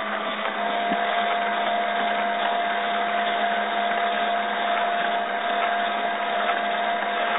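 Small CNC mill's high-speed spindle running with a steady whine while the end mill cuts a shallow groove in MDF board, the cutting noise continuous as the machine traces the outline.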